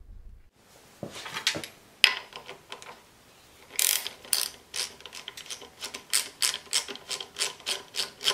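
Ratchet wrench clicking in a quick, even run of about four or five clicks a second as it unscrews the sight-glass drain plug on a small air compressor's pump. A few knocks from handling come before the clicking starts, about four seconds in.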